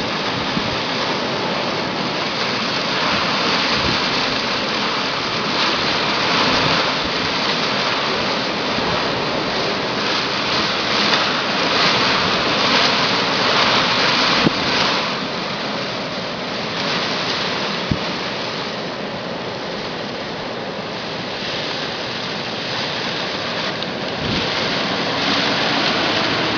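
Strong bora wind gusting through a palm tree's fronds: a loud, continuous rushing hiss that swells and eases with the gusts, strongest about halfway through.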